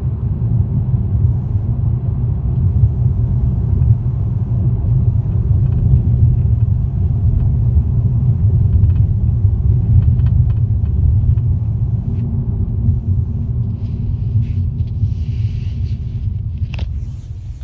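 Steady low rumble from a 2018 Toyota Corolla, with a few light clicks in the second half and a sharper click near the end.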